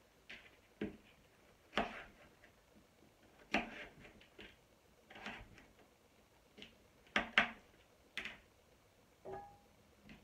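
Kitchen knife chopping butternut squash on a plastic chopping board: about ten irregular knocks of the blade going through the squash and striking the board, the loudest two close together about seven seconds in.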